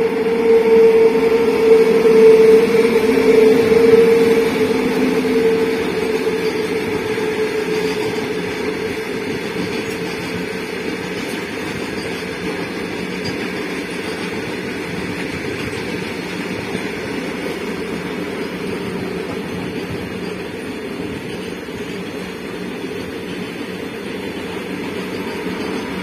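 Freight train passing behind two Indian Railways electric locomotives: a steady humming whine from the locomotives, loudest over the first few seconds and then fading away, gives way to the even rolling noise of the long rake of wagons.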